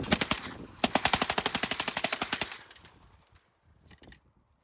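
Uzi 9mm submachine gun firing full auto on steel-cased ammunition: a short burst at the start, then, after a brief pause, a longer burst of about two seconds at roughly ten rounds a second.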